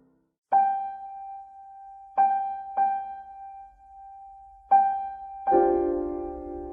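Background piano music: one note struck four times, each left to ring, then fuller chords near the end.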